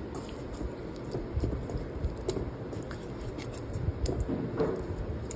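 A hand squishing raw chicken pieces through a thick yogurt-and-spice marinade in a metal bowl, with irregular small wet smacks and clicks.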